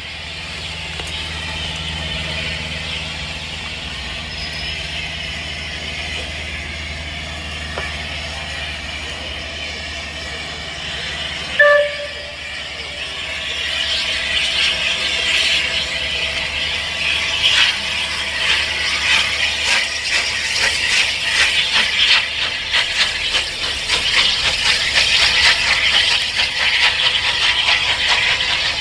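Steam locomotive gives a short whistle toot about twelve seconds in, then works away with a hissing exhaust of rapid beats that grows louder and stays loud.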